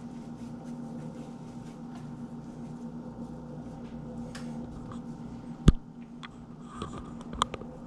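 Soft rubbing and squishing of hands rolling ground gar-fish mixture into balls, over a steady low hum. One sharp knock about three-quarters of the way through, then a few light clicks.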